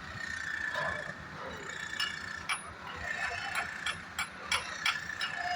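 Steel construction work: a steady high whine, with sharp metallic clicks and clanks starting about two seconds in and coming faster toward the end.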